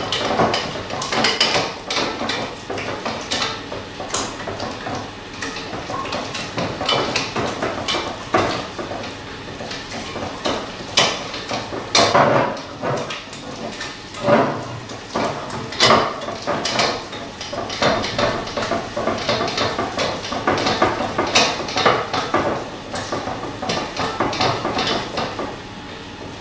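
Wire whisk beating egg into thick choux pastry dough in a stainless steel saucepan: a fast, uneven run of metal clinks and scrapes against the pan, with sharper knocks now and then.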